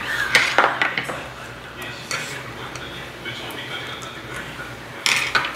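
Metal spoons clinking and scraping against stainless steel rice bowls and earthenware stone pots during a meal. A cluster of sharp clinks comes at the start and another about five seconds in, with quieter handling between.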